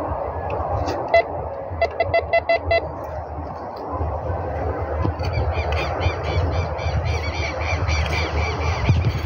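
Handheld metal detector beeping over a buried target: one short beep about a second in, then a quick run of five beeps. From about halfway on, a rapid series of high chirping calls, like birds, over a low rumble.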